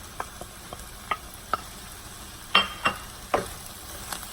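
Vegetables and scrambled egg sizzling in sesame oil in a frying pan, with a utensil clicking and scraping against the pan now and then as the food is stirred. Three louder clacks come in the second half.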